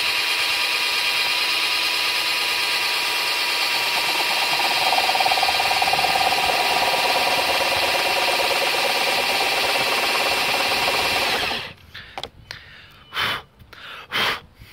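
Cordless drill spinning a 32 mm spade bit, boring through a plastic car door card, running steadily and stopping about three-quarters of the way through. A few light knocks follow.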